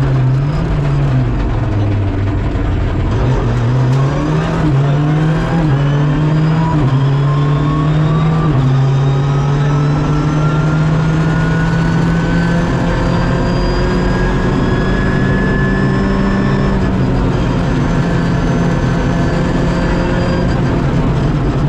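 Rally car engine heard from inside the cockpit. Its pitch dips through a slow coned chicane, then climbs in short pulls broken by quick upshifts, rises in one long pull, and drops slightly as the driver eases off near the end.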